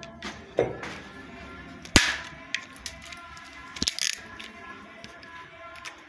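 A hammer striking a steel chisel against a plastered masonry wall. There are a few sharp blows at uneven intervals, the loudest about two seconds in, as the chisel chips out a recess in the wall. Steady background music plays throughout.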